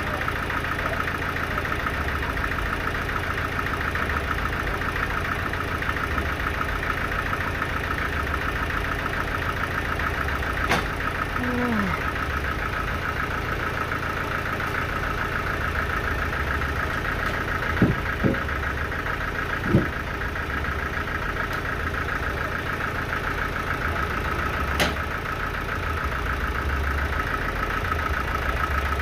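A sawmill's engine running steadily at one speed, with a few sharp knocks.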